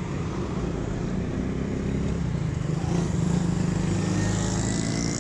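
Motorcycle engine idling steadily, with road traffic passing close by; a vehicle going past makes it a little louder from about three seconds in.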